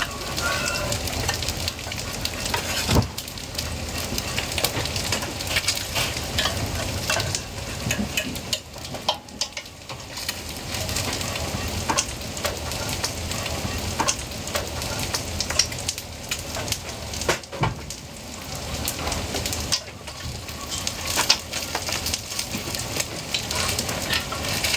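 Food sizzling as it fries, with frequent short clicks and knocks through it.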